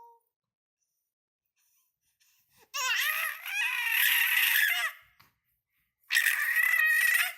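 Seven-month-old baby boy's loud, high-pitched squeals in two bursts: a longer one of about two seconds starting near the three-second mark and a shorter one of about a second near the end.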